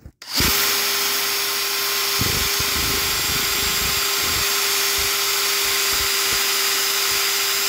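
Handheld power drill starting up and running steadily with a constant whine, its bit drilling out the head of a clutch basket rivet. Irregular low chatter from the bit biting into the rivet sets in about two seconds in.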